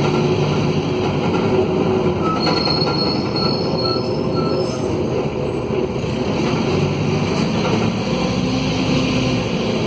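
Mercedes-Benz OM904LA four-cylinder turbodiesel of a midibus running on the move, loud through a broken exhaust. A high-pitched squeal comes and goes for about two seconds a few seconds in.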